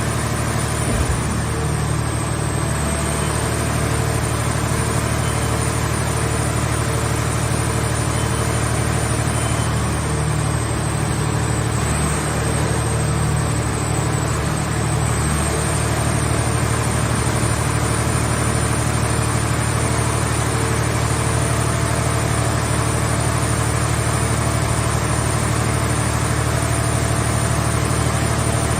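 Heavy engine running steadily at constant speed: a low drone with a thin, high-pitched whine held over it.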